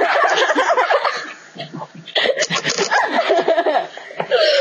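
A girl laughing hard in two long bouts of giggles and snickers, with a brief pause a little before halfway.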